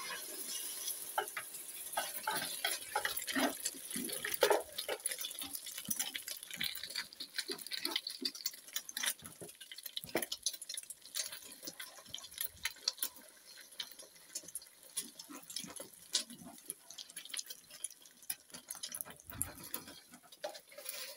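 Metal spoon stirring and scraping scrambling eggs in a metal pot over a wood fire: irregular clicks and scrapes of spoon on pot, busier in the first half, over a steady faint hiss.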